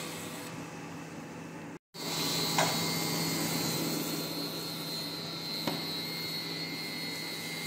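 Bok choy and mushrooms sizzling in a hot pan while a wooden spatula stirs them, with two light spatula knocks against the pan, over a steady low hum.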